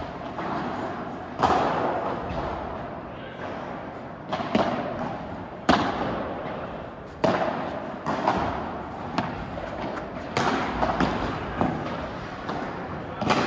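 Padel rally: a string of sharp hits as the ball is struck by rackets and bounces off the court, coming every one to three seconds, each with a short echo after it.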